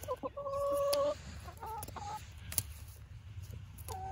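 A hen calling: a drawn-out, even-pitched note about half a second in, then a few short clucks, and another rising call starting near the end. A couple of sharp snips come from kitchen scissors cutting through the flight feathers of her wing.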